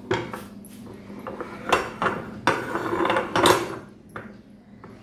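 Pan support and burner parts of a glass-top gas stove being handled, knocking and clattering against the stove top: a string of irregular clanks, the loudest about three and a half seconds in.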